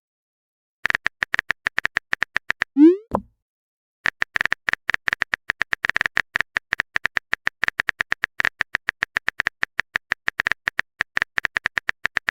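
Rapid clicking of a phone keyboard-typing sound effect, a message being typed, with a short rising bloop about three seconds in like a message-sent sound; then the typing clicks start again and run on.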